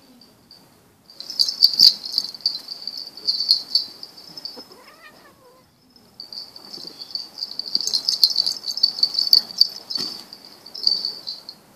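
Insects chirring in fast, high-pitched pulses, loud in two long spells, over rustling scuffles as two cats wrestle in the grass. A short cat call rises and falls about five seconds in.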